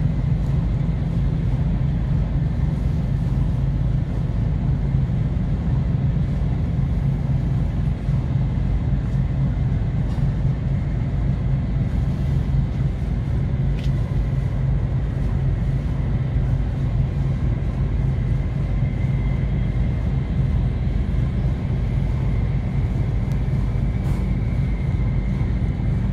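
Ship's engine running steadily with a deep, even rumble and a faint high whine over it during unmooring.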